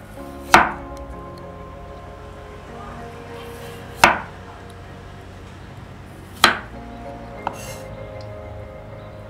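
Chef's knife cutting through a peeled raw potato and striking a wooden cutting board: three sharp chops a few seconds apart, with a fainter knock near the end, over background music.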